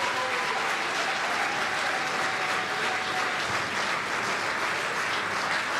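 Large audience applauding, a steady dense clatter of many hands, with one long held call from the crowd over roughly the first three seconds.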